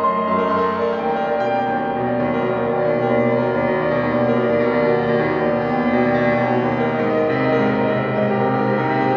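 Yamaha grand piano playing dense, ringing chords at a steady loudness, the harmony shifting about a second in and again near the end.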